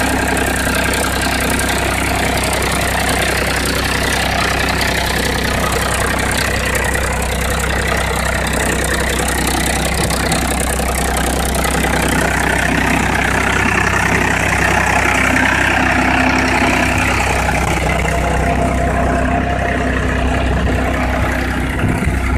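Powertrac Euro 50 tractor's three-cylinder diesel engine running steadily while the tractor pulls a plough.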